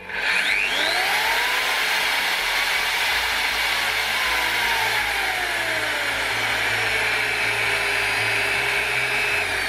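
Parkside PFMR 1600 B2 paddle mixer's motor running with no load. It spins up over about a second, holds its speed, then its whine falls gradually as the speed control is turned down, settling at the minimum speed (roughly 200 rpm) near the end.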